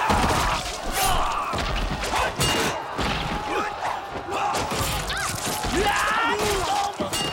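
Battle sound effects from a dramatised fight: a dense din of repeated heavy thuds and crashes, several of them sharp, with short shouts rising and falling in the second half.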